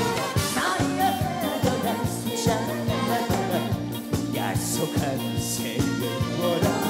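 Live trot song: a male singer with vibrato over a band with a steady drum beat.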